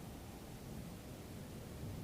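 Desert wind blowing steadily, a low rumble under a faint hiss.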